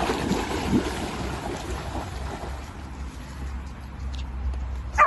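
Water splashing as an English cocker spaniel wades and swims through a shallow river, loudest in the first couple of seconds and then easing as the dog moves off. A low wind rumble on the microphone runs underneath.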